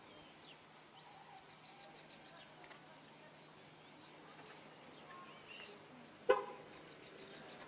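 Faint outdoor ambience with two short runs of rapid, high-pitched chirping, one about two seconds in and one near the end. A single sharp click about six seconds in is the loudest sound.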